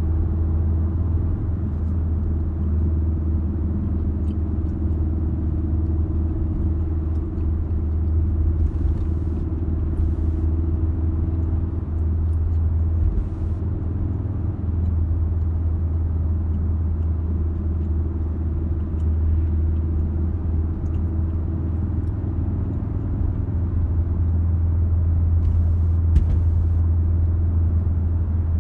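Ford Focus RS cruising steadily, heard from inside the cabin: a steady low drone of engine and tyre noise, with a few faint clicks.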